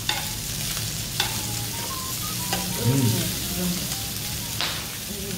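Pork belly sizzling steadily on a hot tabletop griddle, with a few sharp clicks from the metal scissors and tongs cutting and turning the meat.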